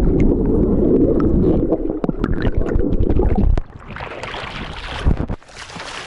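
A swimmer diving into seawater, heard with the microphone underwater: a muffled rumble of bubbles and churning water. About three and a half seconds in it cuts off into lighter splashing as he breaks the surface among the waves, with one short thump near the end.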